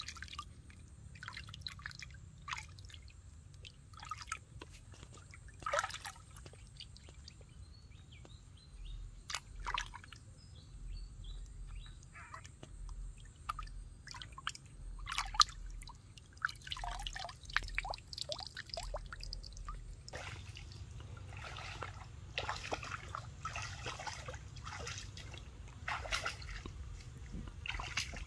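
Water splashing, trickling and dripping as hands scoop and pour river water over a baby monkey being bathed, with irregular separate splashes that grow denser and more continuous over the last several seconds.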